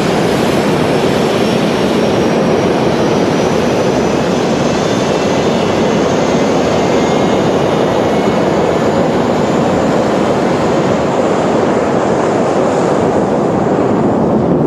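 A-10 Thunderbolt II's twin General Electric TF34 turbofan engines running: a loud, steady jet rush with a thin high-pitched whine that drifts slowly upward, the whine fading near the end.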